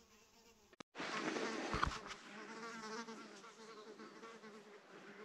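Steady insect buzzing starting about a second in: a low even hum with a fainter higher tone above it, over quiet forest air.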